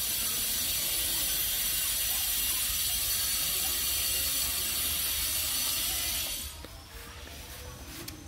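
A steady, high-pitched rasping drone of insects, which cuts off about six and a half seconds in and leaves a quieter background with a few faint clicks.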